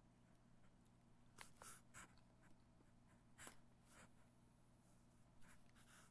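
Near silence with a few faint clicks and scrapes of a small plastic Mega Bloks minifigure being handled and set down on a wooden tabletop, over a low steady hum.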